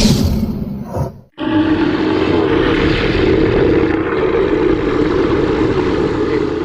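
Custom monster roar sound effect layered from dinosaur and animal roars: a short, loud cry that cuts off sharply, then one long, steady roar.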